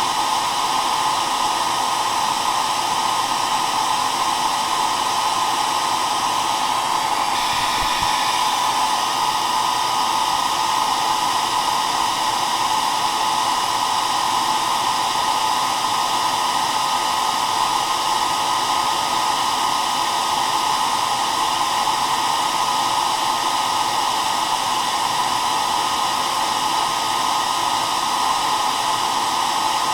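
Hair dryer running continuously at a steady setting: an even blowing rush with a constant whine, unchanging in level.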